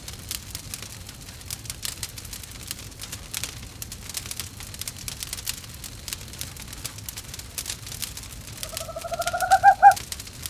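Wood fire crackling in a fireplace with a steady scatter of pops. Near the end comes an owl call about a second long, rising slightly in pitch and pulsing; it is the loudest sound.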